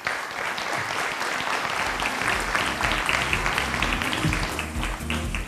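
Audience applauding, a dense patter of many hands clapping. Music with a low beat comes in under the clapping about two seconds in.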